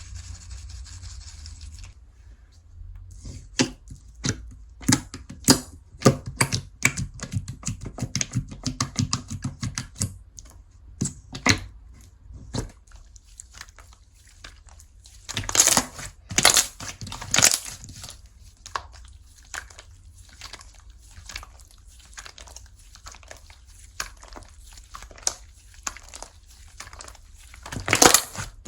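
Slime being stretched, squeezed and pressed by hand: a dense run of sticky clicks, pops and crackles. The popping comes in louder bouts about halfway through and again near the end.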